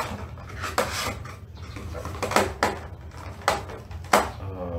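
Cardboard display box with a plastic window being handled and opened: a string of sharp knocks, clicks and scrapes as the box and its inner tray are pushed and pulled.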